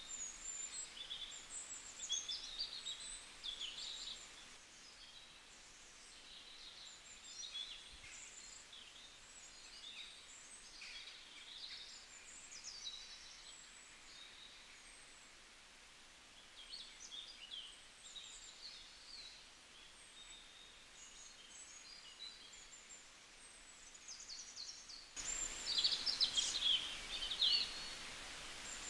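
Small birds chirping and calling, many short high notes and slurs over a faint outdoor hiss, growing louder and busier near the end.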